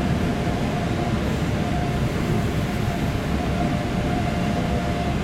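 Cabin noise inside an ЭП2Д electric multiple unit: a steady low rumble with a faint hum that comes and goes.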